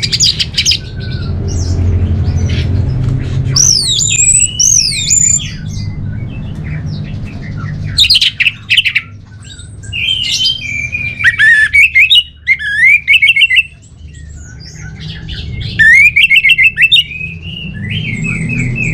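Orange-headed thrush (anis merah) singing loud, varied phrases of whistles, quick rising and falling slides and fast trills, separated by short pauses, over a steady low background rumble.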